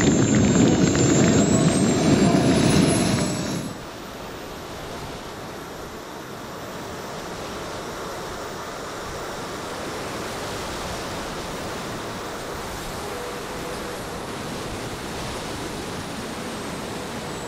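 Four Jetsmunt 160 model gas turbines of a 1/5-scale Avro Vulcan RC jet running loud, their high whine rising over the first few seconds. After about three and a half seconds the sound drops suddenly to a steady rushing wind noise over the camera on board the flying model, with a faint turbine whine underneath.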